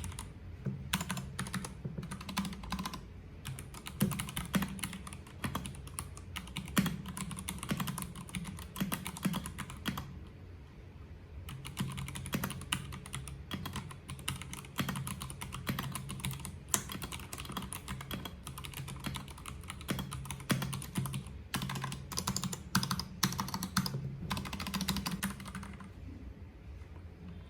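Keycool KC84 mechanical keyboard with PBT double-shot keycaps being typed on in quick, steady runs of keystrokes. The typing pauses briefly about ten seconds in and thins out near the end.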